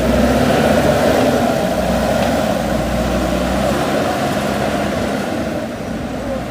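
JCB 3DX backhoe loader's diesel engine running steadily, its level easing a little near the end.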